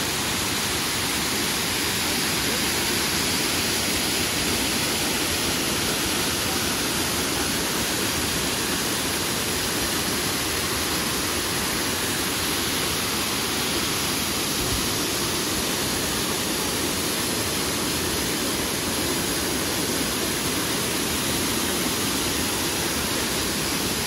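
Waterfall: a steady, even rush of falling water that holds without a break.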